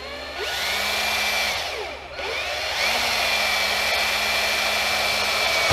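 Power drill with an eighth-inch bit boring a rivet hole through thin aluminum sheet. The motor whines up, eases off for a moment about two seconds in, then spins up again and runs steadily until it stops near the end.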